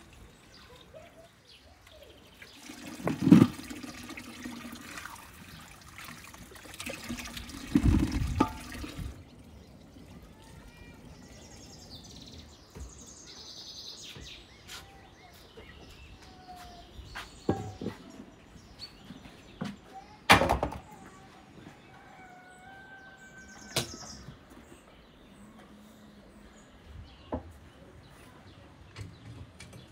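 Water running from a garden tap into a metal basin for several seconds while apricots are washed by hand, with a couple of knocks; then it stops. After that, birds call and chirp.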